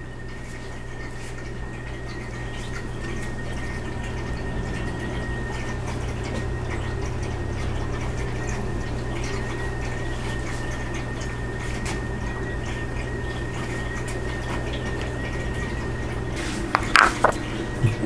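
A steady rushing, water-like noise with a faint constant high tone over it, growing slowly louder. A few sharp knocks near the end, as rocks are set down on the floor.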